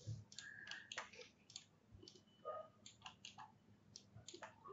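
Faint, irregular clicking of a computer mouse and keyboard, a dozen or so short clicks at uneven intervals.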